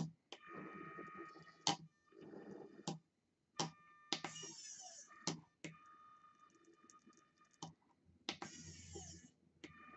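Rotary hobby servos driving a pen-holding robot arm, whining in short stop-start spurts with sharp clicks between moves, and two longer, harsher spurts about four and eight and a half seconds in.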